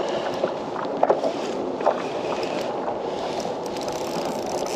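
Water lapping and slapping against the hull of a plastic pedal kayak, a steady wash with a few small splashes, and a little wind.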